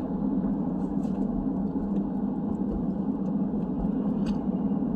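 Steady low rumble of a moving car's engine and tyres on the road, heard from inside the cabin, with a few faint ticks.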